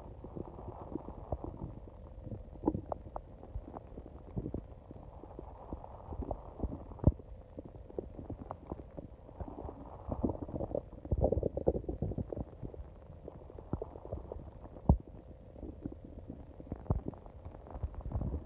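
A person's stomach growling: continuous low gurgling and rumbling, dotted with many short pops and bubbling clicks. A louder stretch of gurgling comes about ten to twelve seconds in.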